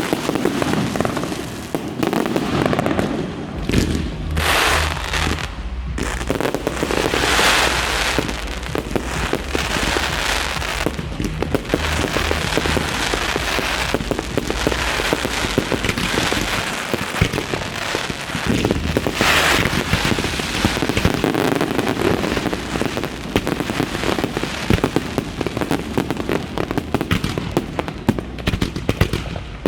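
Fireworks display: dense, continuous bangs, pops and crackling, with the crackle swelling up several times.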